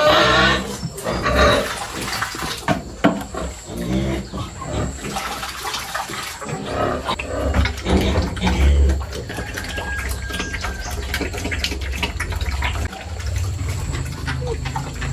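A pig eating wet fermented feed from a concrete trough: irregular slurping and chomping, with a loud pig call right at the start.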